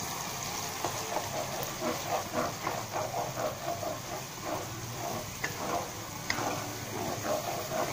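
Wooden spatula stirring and scraping thick, sticky chili sauce around a stone-coated nonstick pan, in a quick run of strokes that starts about a second in, over a steady hiss from the sauce simmering on the heat.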